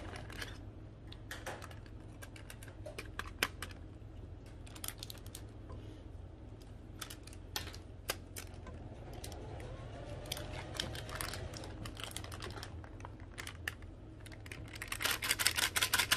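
Plastic spoon clicking and scraping against the side of a stainless steel pot while colourant is stirred into soap batch: scattered light clicks, then a fast, louder run of clicks near the end.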